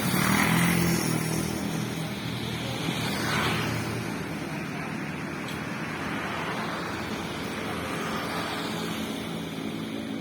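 A motor vehicle engine running steadily, with a swell of noise near the start and another about three and a half seconds in.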